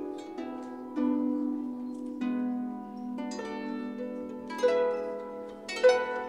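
Konghou, the Chinese harp, played solo: a slow line of plucked notes that ring on over one another above a sustained low note, with firmer plucks about every second.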